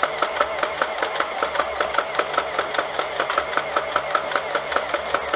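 Boomco Colossal Blitz battery-powered toy dart blaster firing rapid-fire: a steady motor whir under an even run of sharp shots, about four to five darts a second.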